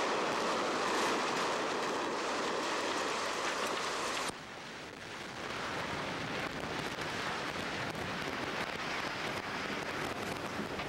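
Implosion of a nine-story reinforced-concrete office building: a dense barrage of demolition charges that drops off sharply about four seconds in, followed by the deeper rumble of the structure collapsing.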